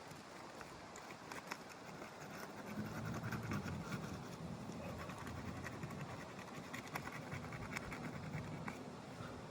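Scattered small clicks and scratching of hand work on an asphalt shingle roof, with a low rumble that comes up about two and a half seconds in.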